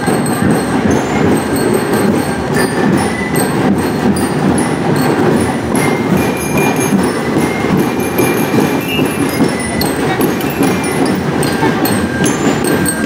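Marching drum-and-lyre band playing: a dense, steady drum cadence with short high bell-lyre notes here and there.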